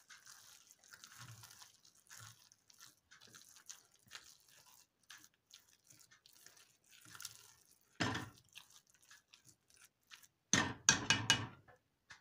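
A spoon stirring thick porridge in a metal pot: soft wet squishing and scraping. There is one loud knock of the spoon against the pot about eight seconds in, and a quick run of knocks near the end.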